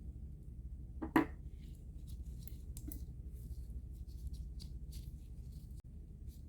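Small clicks and scrapes of parts and tools being handled while a microphone is taken apart, with one sharper, louder knock about a second in, over a steady low hum.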